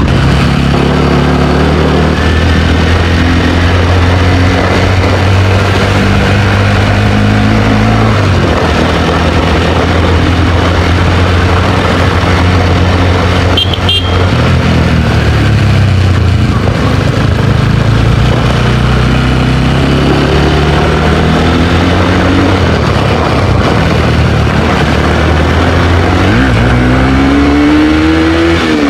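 Motorcycle engine running under way, its pitch holding steady and then dropping sharply about eight seconds in, then climbing and falling several times as it moves through the gears, with another sharp drop near the end.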